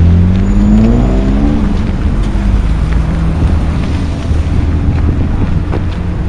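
NSB BM70 electric multiple unit moving past close by, with a deep steady rumble and a motor whine that rises in pitch during the first second or two as the train picks up speed.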